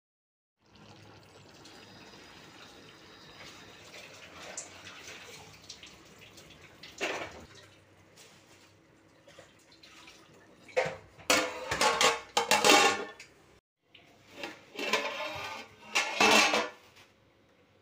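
Stainless steel cookware clanking: a steel strainer bowl of chicken set on a steel pot of rice and moved about, with a single clank and then two clusters of metal-on-metal clatters in the second half. Before that, a faint steady hiss.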